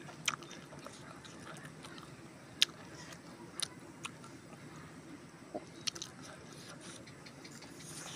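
Close-up eating sounds of someone chewing and biting chicken curry eaten by hand, with scattered sharp mouth clicks and smacks, the loudest about two and a half seconds in.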